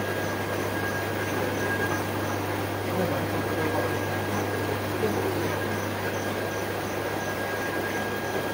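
Steady electrical hum and hiss of aquarium equipment (pumps, filters and tank lighting), with a thin high steady tone and a faint high chirping pulse about three to four times a second.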